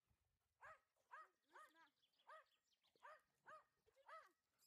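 A dog giving a run of short, high yips, each rising then falling in pitch, about two a second.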